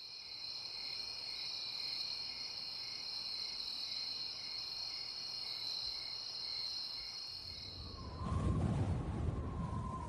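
Crickets chirping: a steady high trill with a slower pulsing chirp about one and a half times a second. About eight seconds in the chirping stops and a low rumble with a faint steady tone takes over.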